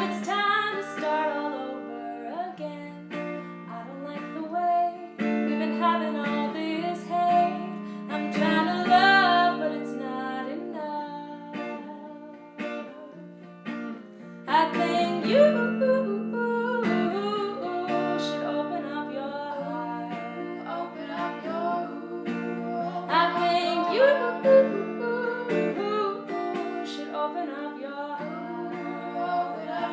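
Music: an acoustic guitar played with a woman singing in several phrases.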